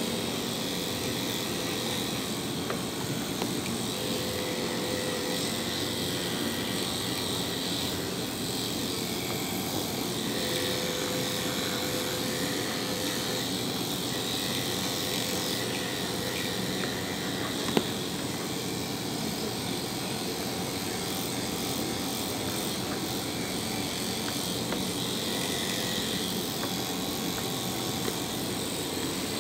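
Electric pet grooming clippers running with a steady buzz while trimming a dog's face. A single sharp click about 18 seconds in.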